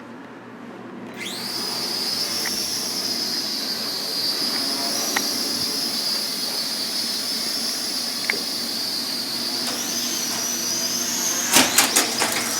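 Small toy quadcopter drone's propeller motors spinning up about a second in to a steady high-pitched whine, which rises in pitch near the end, followed by several sharp knocks as the drone strikes something.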